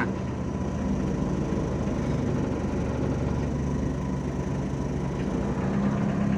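Vehicle engine running steadily on the move, a low hum with road noise, as the filming vehicle follows close behind a heavily loaded light truck.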